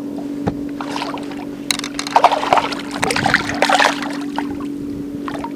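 Water splashing and sloshing in bursts about two to four seconds in, as a small smallmouth bass is brought to the side of the boat, over a steady hum.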